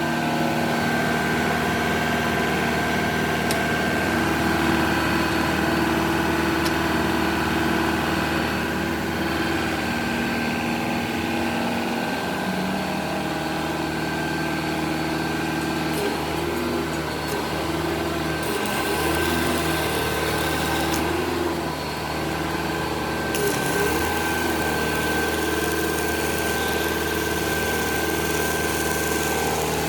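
Diesel engine running at a steady speed.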